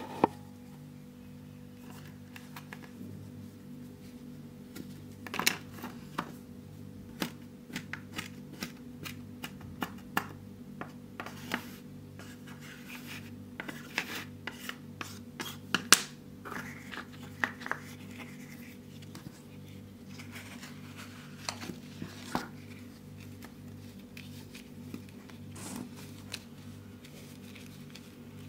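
Kinetic sand being cut, scraped and pressed with small plastic tools on a wooden tabletop: irregular crisp crunches, scratches and taps, with a few sharper clicks. A steady low hum sits underneath.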